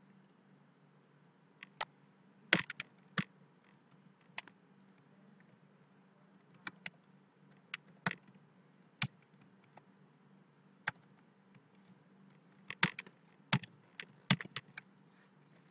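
Irregular keystrokes on a computer keyboard: separate sharp taps, bunched in a short flurry a few seconds in and another near the end, over a faint steady low hum.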